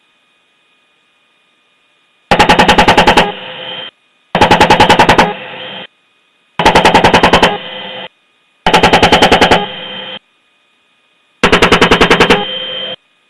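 AH-64 Apache's 30 mm M230 chain gun firing five short bursts of about ten rounds each, roughly two seconds apart, each burst ending in a brief muffled tail.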